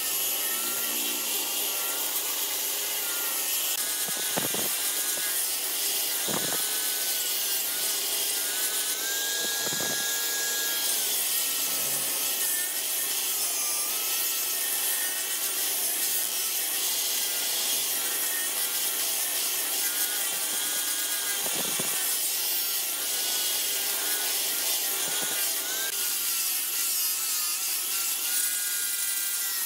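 Handheld electric angle grinder grinding and shaping wood: a continuous rasping hiss of the disc on the wood, over a motor whine that wavers in pitch, with a few brief knocks as the disc touches on.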